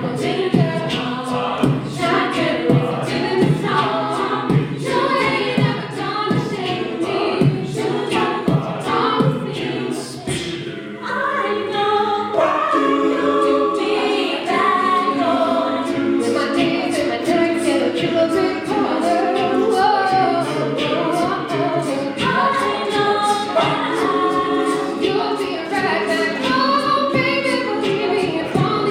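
Mixed-voice a cappella group singing in close harmony over a steady percussive beat. About eleven seconds in, the low pulsing stops and the voices move into held chords under a lead melody.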